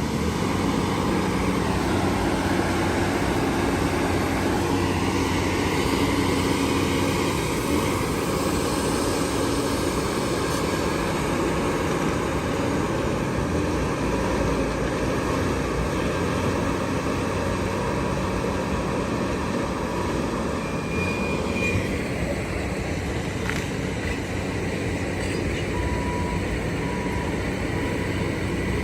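Diesel engines of heavy earthmoving machines, a front loader and a bulldozer, running steadily as they work, with a continuous low engine hum.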